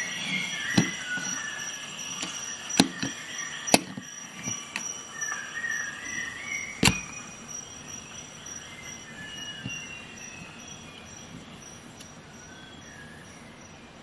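Sharp clicks and snaps, four loud ones in the first seven seconds, with faint squeaky chirps between them; it grows quieter in the second half.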